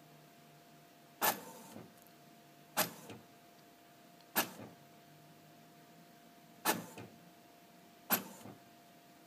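HP Photosmart C6180 inkjet printer running a test print. Its mechanism gives five sharp clunks, one every one and a half to two seconds, each followed by a softer knock, over a faint steady hum.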